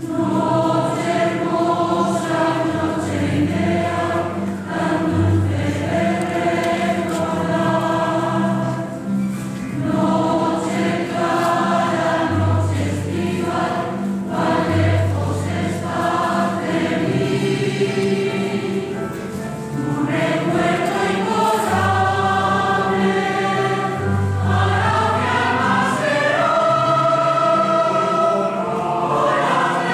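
Mixed choir of men's and women's voices singing a barcarola in harmony, with sustained notes and low bass lines moving beneath the upper parts.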